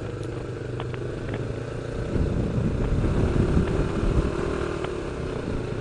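Motorcycle engine running while riding, heard from the bike with low wind rumble on the microphone; it grows louder about two seconds in.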